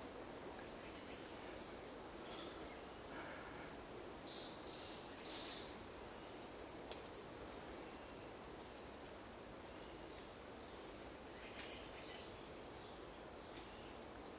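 Forest ambience: an insect's high, thin trill repeating in short pulses, with a few brief bird chirps about four to five seconds in.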